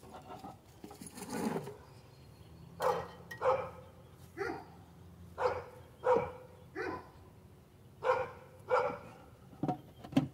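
A dog barking repeatedly: about ten short barks, roughly one a second.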